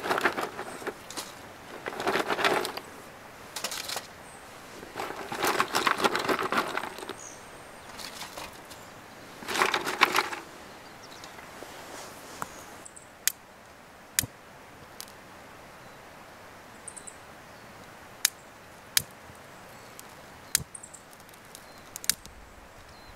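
Dry twigs and grass rustling and crunching as they are pushed by gloved hands into a metal fire box, in four or five bursts over the first ten seconds. After that comes a scattering of sharp single clicks and crackles, about one every second or two.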